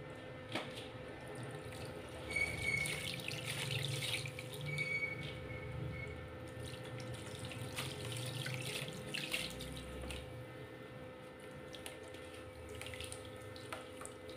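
Hands sloshing and squeezing soft lumps of mud in a plastic basin of muddy water, with irregular splashes, drips and small crumbling clicks. The splashing is busiest a couple of seconds in and again around the ninth second, over a faint steady hum.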